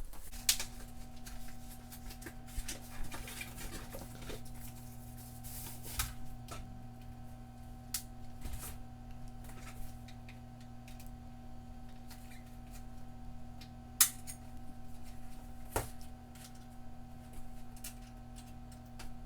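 A steady low electrical hum with a fainter higher tone above it, starting at the outset, with scattered sharp clicks and taps over it, the loudest about 14 seconds in.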